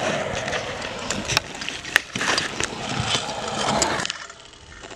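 Freestyle scooter's hard wheels rolling on a concrete skatepark bowl, a steady rumble with a few sharp clacks, that goes much quieter about four seconds in as the scooter leaves the ground in a jump.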